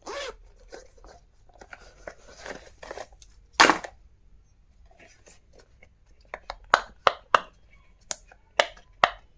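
Stationery items and packaging being handled during an unboxing: rustling and scraping, one louder knock just under four seconds in, then a run of sharp clicks and taps in the second half.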